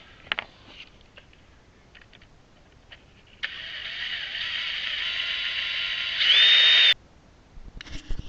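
Cordless drill-driver running for about three and a half seconds to spin out a bolt, its gear whine stepping up louder and higher near the end before it cuts off suddenly. A few light metallic clicks come before it.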